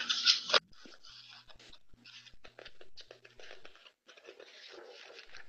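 Paper page of a picture book being turned by hand: a sharp rustle at the start, then faint scratchy rustling and small taps as the page is lifted and brought over.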